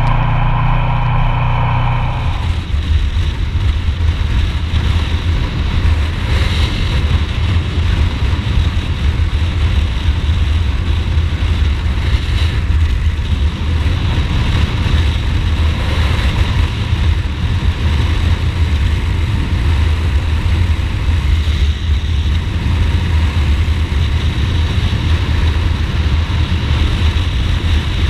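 Ducati Multistrada motorcycle on the move, its engine running steadily. For about the first two seconds the engine note is clear; after that it is mostly covered by a dense rumble of wind noise on the microphone.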